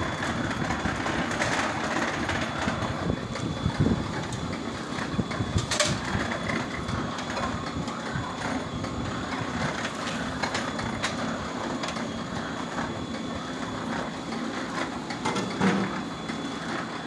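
Clay brick making machine running: a steady mechanical rattle with irregular knocks and clatter.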